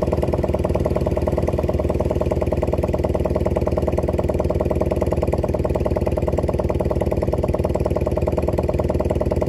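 Small boat engine running close by at a steady speed, with a fast, even beat, as it powers the hauling up of a bag net's cod-end.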